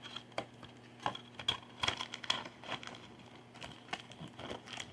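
Crinkling, tearing and light tapping of card-pack packaging: foil-wrapped trading-card packs and their cardboard hobby box being handled and pulled open in short, irregular bursts.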